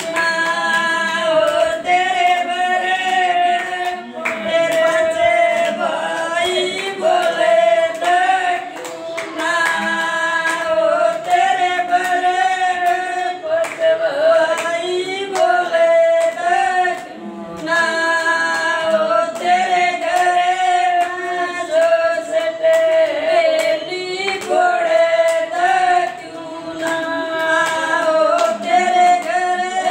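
Women singing a sagai geet, a folk engagement song, together with no instruments, clapping their hands along to the beat.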